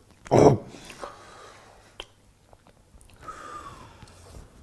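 Quiet chewing of a snack, with a short loud breath out near the start and a few faint mouth clicks after it.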